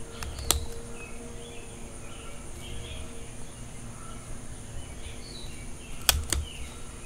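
Hand pruning shears snipping branches on a small potted mulberry: one sharp snip about half a second in, then two more close together near the end. A steady high drone of insects runs underneath.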